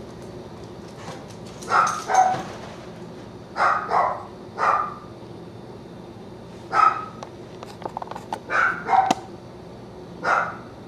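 Dog barking: about nine short barks, several coming in quick pairs, with pauses between.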